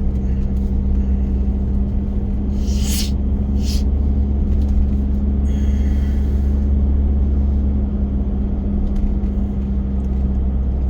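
Car cabin noise while driving: a steady low rumble of engine and tyres on the road. A couple of brief hissing noises come about three seconds in.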